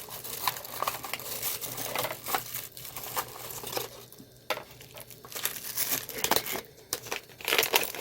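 Packaging being handled and crinkled in irregular crackles, with some tearing, growing louder near the end.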